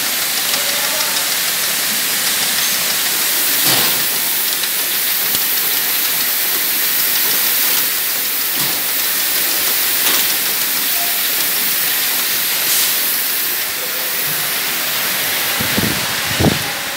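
Steady machinery hiss of a running slat chain conveyor line, with a few faint knocks and two low thumps near the end.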